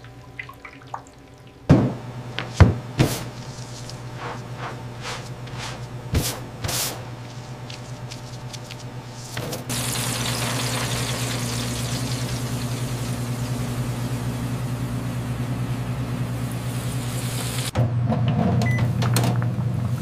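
A few sharp knocks and drips from a wire fry basket of battered chicken over a low steady hum; about halfway through, a steady hiss of chicken frying in a deep fryer's hot oil sets in, louder near the end.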